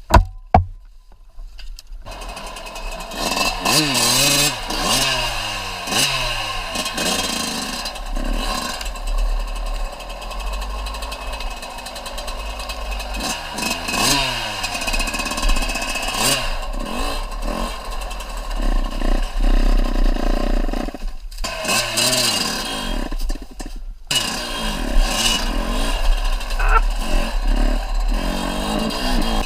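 Small off-road vehicle engine revving up and down over and over while being ridden, its pitch rising and falling in repeated glides. The sound cuts out briefly twice, past the two-thirds mark.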